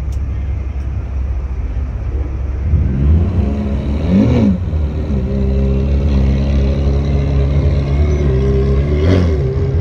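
A Ferrari convertible's V8 engine running at low speed as the car rolls off, with a short blip of revs about four seconds in and another about nine seconds in.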